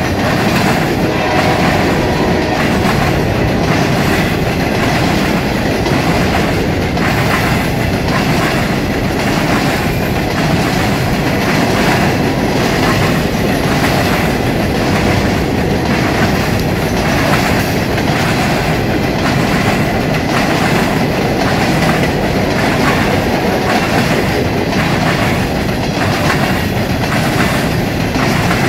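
CSX coal train's black hopper cars rolling past: a steady rumble of steel wheels on rail with a regular clickety-clack.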